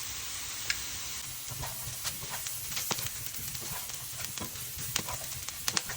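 Potatoes frying in oil in a pan: a steady sizzle with many scattered crackles and pops, as freshly added curry leaves splutter in the hot oil.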